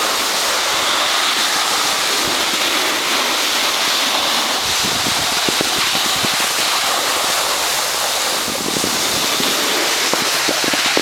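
Steady rushing hiss of a snowboard sliding over packed snow, with wind on the microphone.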